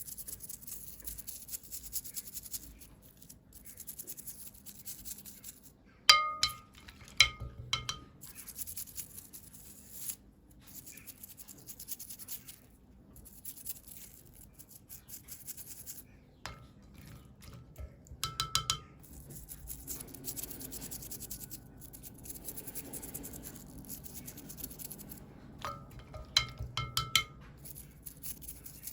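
Small hard miniature pieces and their packaging being handled: a recurring scratchy rustling, broken by clusters of light clinks that ring briefly, about six seconds in, around eighteen seconds and near the end.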